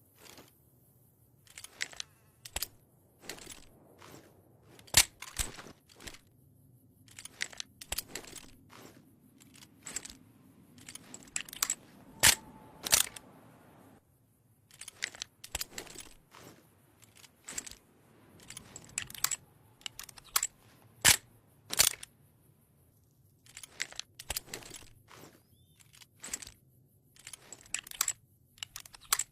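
Schofield top-break revolver's action being worked: a long series of sharp clicks and snaps at irregular intervals, many in quick clusters, a few much louder than the rest.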